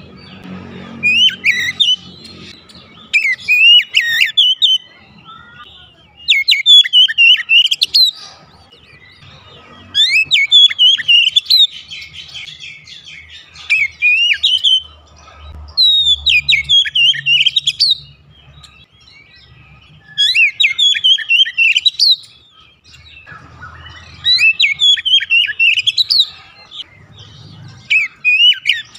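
Oriental magpie-robin singing: loud phrases of quick rising and falling whistles and chirps, each lasting a second or two, repeated about nine times with short pauses between.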